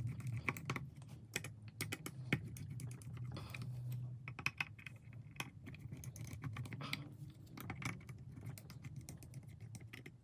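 Small screwdriver working tiny body screws out of a Mamiya RZ67 Pro II's top cover, heard as faint, irregular clicks and light ticks of metal on metal, along with the camera body being handled.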